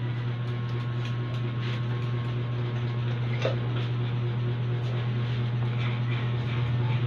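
Barber's scissors snipping hair every so often over a steady low hum.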